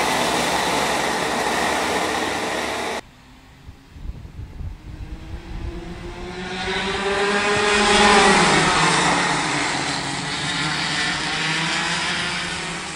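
A loud, even rushing noise cuts off suddenly about three seconds in. Then a pack of go-kart engines approaches and passes, their pitch rising and then falling, loudest about eight seconds in, with engines still running after.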